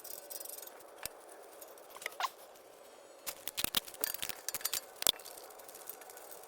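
Scattered small metallic clicks and taps, thickest from about three to five seconds in, as the wheel bearing's mounting bolts are handled and hand-threaded in.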